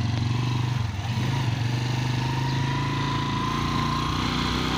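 Motorcycle engine running steadily at low riding speed, easing off slightly about a second in.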